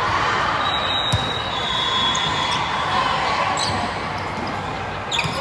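Volleyball gym ambience: steady crowd chatter echoing through a large sports hall, with a sharp volleyball hit about a second in and another near the end.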